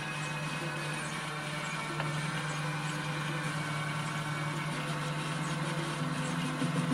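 A small electric power tool running steadily: a constant low hum with an even hiss over it.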